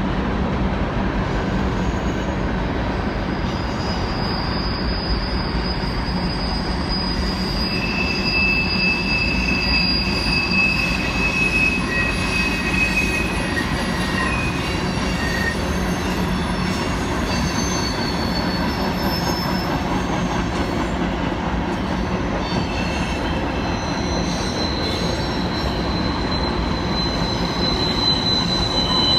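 A freight train's cars rolling past: a steady rumble of steel wheels on rail, with high-pitched wheel squeal that comes and goes.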